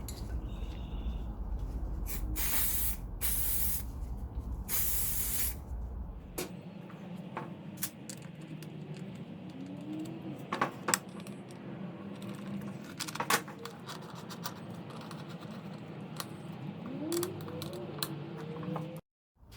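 Two short hissing sprays, about a second each, over a deep low rumble that stops about six seconds in. Then scattered clicks, taps and a few brief squeaks from handling parts.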